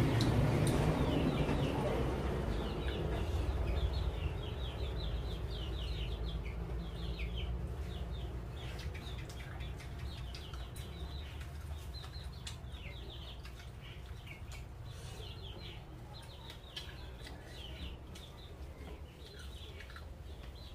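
Birds chirping over and over in quick short calls, while a low passing-vehicle rumble fades away over the first few seconds.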